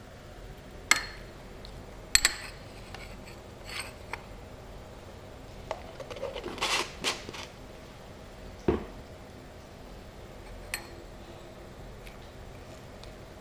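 Metal spoon clinking against a small glass bowl while stirring a wet marinade, with several sharp separate clinks and a quicker run of them a little past the middle.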